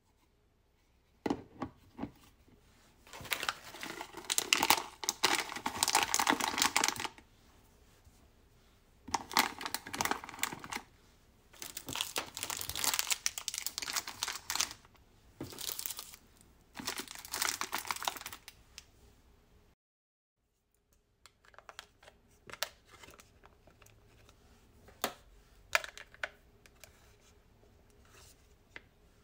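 Plastic candy and snack wrappers crinkling as packets are handled, in several bursts of a few seconds each. After a short pause, a series of light plastic clicks and taps from the bento lid and its clip-on spoons.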